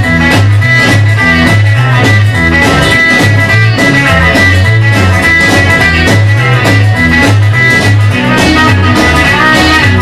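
Instrumental break of a rock and roll song: guitar over a pulsing bass line and a steady drum beat.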